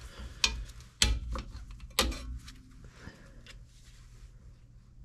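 Sharp metallic clicks and taps of a flathead screwdriver working at the lower return spring of a rear drum brake's shoe assembly, three louder clicks in the first two seconds, then fainter ones.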